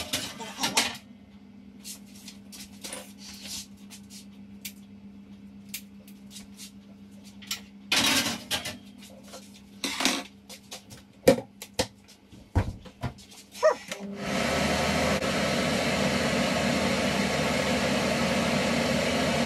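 Floured ormer (abalone) pieces sizzling in hot oil in a frying pan. The sizzle starts suddenly about 14 seconds in and runs steady and loud. Before it come scattered clicks and knocks of kitchen handling over a low steady hum that stops about 8 seconds in.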